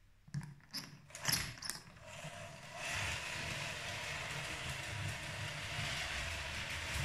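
LEGO 12V train motor running steadily with a gear whir as the train rolls along plastic track, after a few sharp clicks and knocks in the first two seconds.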